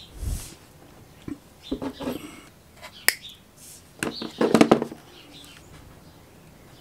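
Hands handling wires and a plastic snap-on wire-tap connector: rustling and scattered clicks. There is a dull thump at the start, a sharp click about three seconds in, and a louder bout of clicking and rubbing between four and five seconds in.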